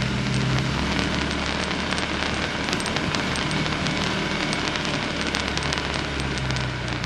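Off-road vehicle's engine running at low revs, its pitch shifting slightly, under a dense, irregular crackle of small clicks and pops.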